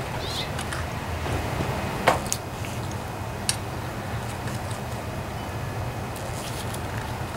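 A few short, sharp clicks from the plastic pull-start handle and new starter rope being handled and threaded, the loudest about two seconds in, over a steady low background rumble.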